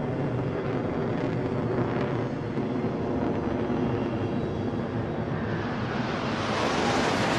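Jet aircraft engine noise, a steady rushing that swells louder and brighter in the last couple of seconds as the jet draws closer.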